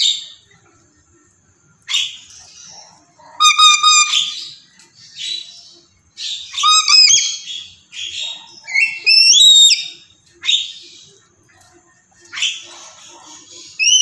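Crimson rosella calling: a string of about ten short calls, harsh chattering squawks mixed with clear whistles, some gliding up or down in pitch.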